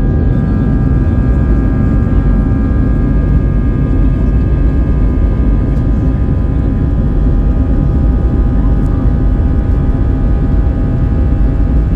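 Airbus A320 jet engines running at steady power, heard inside the cabin beside the wing as the airliner rolls along the ground: a steady low rumble with a steady multi-toned whine over it.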